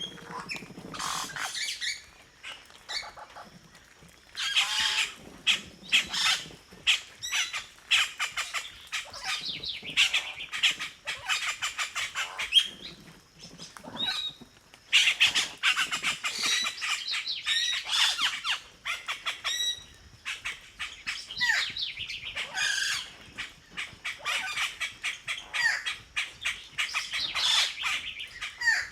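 Many birds calling together in a dense chorus of short, rapid, overlapping calls, with a few brief lulls.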